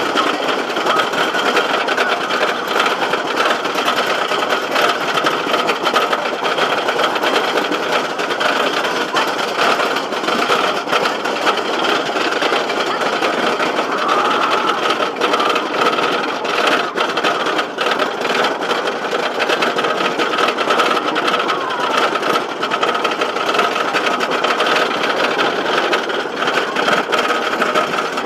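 GhostRider wooden roller coaster's Millennium Flyer train clattering along the wooden track at speed, heard from a rider's seat: a steady, loud, rapid rattle with rushing noise.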